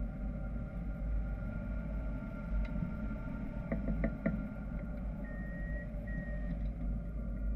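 Steady low rumble of wind rushing over a camera mounted on a hang glider's wing in flight. A few faint clicks come a little after the middle, and two short high tones follow later.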